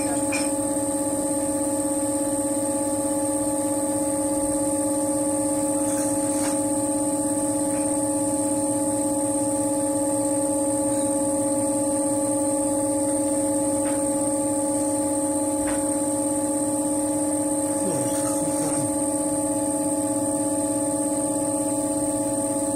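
Steady electrical or machine hum made of several constant tones that hold unchanged throughout, with a few faint clicks about six and eighteen seconds in.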